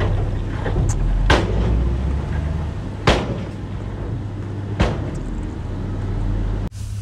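Heavy diesel earthmoving machinery running steadily, with three sharp knocks spaced a little under two seconds apart. The sound drops out abruptly near the end and comes back quieter.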